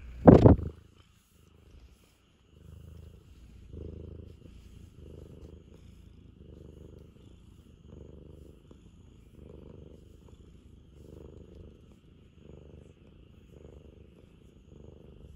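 A brief loud bump right at the start. Then, from about two and a half seconds in, a Ragamuffin cat purrs steadily while its head is stroked, the purr swelling and fading with each breath about once every second and a half.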